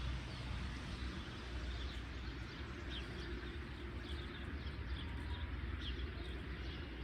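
A bird calling repeatedly in short, falling chirps, one every second or two, over a steady hiss and low rumble.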